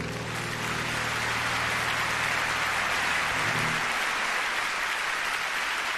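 Concert audience applauding, while the last low chord from the grand pianos rings under the clapping and dies away about four seconds in.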